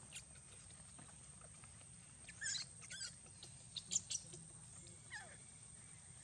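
Newborn macaque giving short, high-pitched squealing cries: a cluster of a few squeals in the middle, then one falling cry. These are distress calls as an older monkey grabs and holds it.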